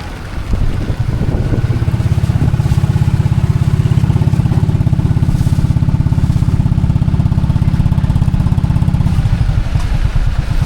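Motorcycle engine running steadily: a low, even putter that builds about a second and a half in and holds without revving.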